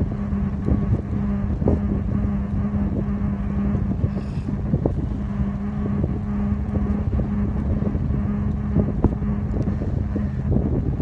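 Wind buffeting a phone microphone on a moving bicycle, with tyre and road rumble, a steady low hum and scattered small rattles and knocks from the bike.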